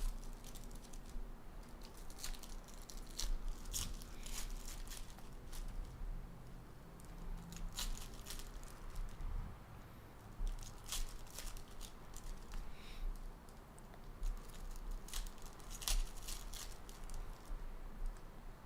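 Trading card packs being torn open and cards handled: scattered crinkling and tearing of foil wrappers and soft clicks of cards, in short irregular bursts.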